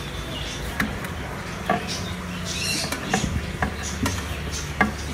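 A plastic submersible aquarium pump being handled and set into a glass sump compartment: about six sharp clicks and knocks of plastic on glass, with light rustling between them.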